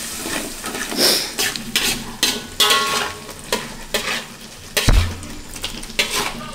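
Metal spatula scraping and clinking against a wok while chicken cooks in a chili paste, sizzling steadily. A dull thump about five seconds in.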